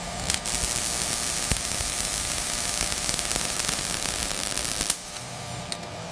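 A steady, loud hiss of noise that drops to a quieter hiss about five seconds in.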